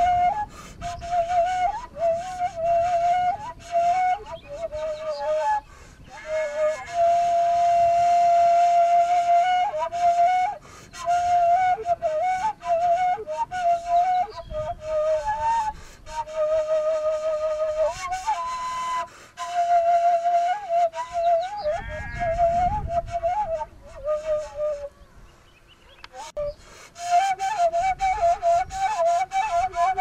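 Background music: a solo flute playing a slow melody of long held notes broken by quick ornamented turns, with a short pause a few seconds before the end.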